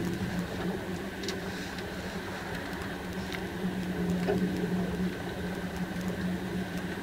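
Steady cabin noise inside a KTX high-speed train running into a station: an even rumble carrying a constant low hum, with a few faint ticks.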